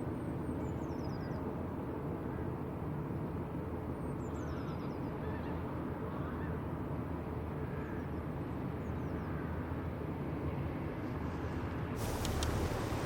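Steady low rumble of a passing cargo ship's engine on the canal, with faint bird calls above it. Near the end wind starts buffeting the microphone with a sudden rise in hiss.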